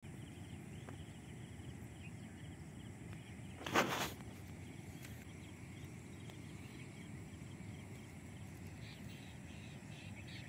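Waterside outdoor ambience: a steady low rumble with faint bird and insect chirps and ticking, broken about four seconds in by one short, loud rush of noise.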